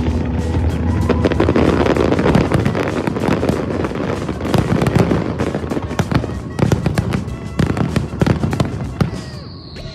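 Aerial fireworks bursting in a dense barrage of bangs and crackles, thinning to separate bangs later on, over background music.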